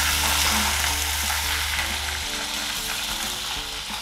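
Hot frying pan sizzling as white wine is poured onto frying onion, garlic and mushrooms, with a wooden spoon stirring. The sizzle is loudest at first and dies down over the seconds as the wine boils off.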